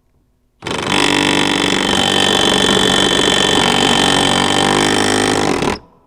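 A power wrench, most likely a cordless impact wrench, runs for about five seconds on a mower blade bolt to work it off. It starts a little after the beginning and cuts off suddenly near the end.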